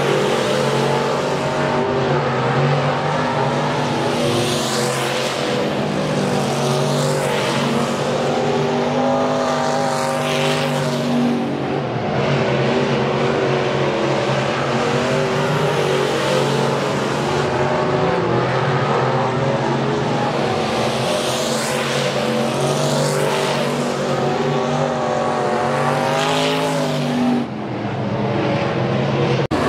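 Dirt-track race car engine running at speed around an oval, its note swelling and fading several times as the car laps past.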